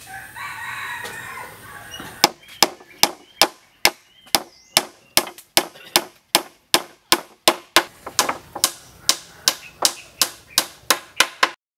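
Hammer driving a nail into an old wooden board: a steady run of sharp blows, about two and a half a second, starting about two seconds in and stopping just before the end.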